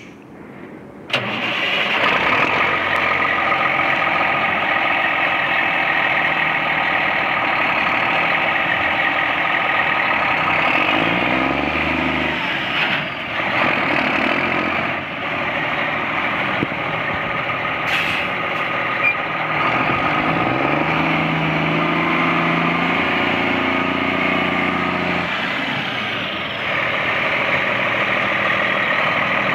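Diesel engine of a 1995 International 9400 truck starting about a second in and then idling, revved up twice: a short rise in pitch near the middle, then a longer one held for a few seconds before dropping back to idle.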